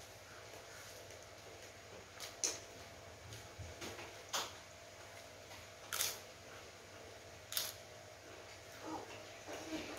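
Papad (thin crisp lentil wafers) snapping and crunching as they are broken by hand and eaten: four sharp crunches about a second and a half apart, with smaller crackles between, over a low steady room hum.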